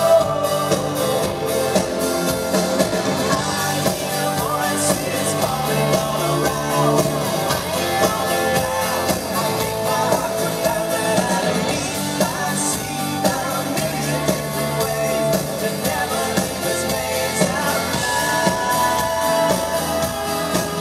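Live pop-rock band playing: drum kit, electric guitar and a male lead vocal, a full steady mix throughout.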